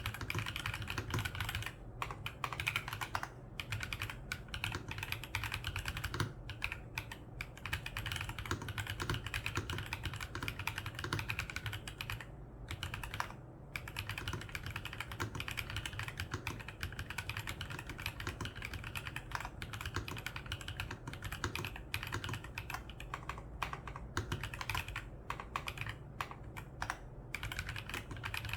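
Typing on a VGN N75 Pro mechanical keyboard with Stream Wave switches: a steady, fast run of key clicks with a few brief pauses.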